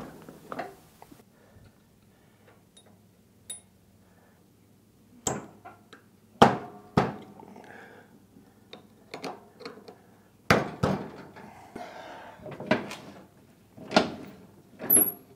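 Scattered metallic clicks and knocks of hand work on a John Deere L118 riding mower's front steering spindle, as it is pushed back up into the axle and its spring clip is put on.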